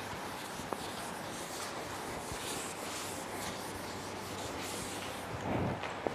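Chalkboard being wiped with a duster: steady rubbing and scraping, with a louder bump and a sharp knock near the end.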